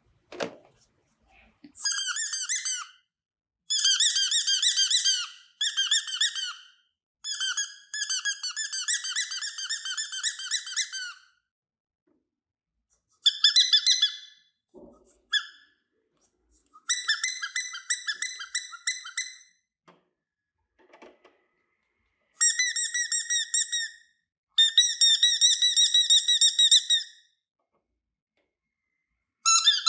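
Rubbery squeaking in about eight bursts of one to four seconds each, each a fast stutter of high-pitched squeaks, with silent gaps between them.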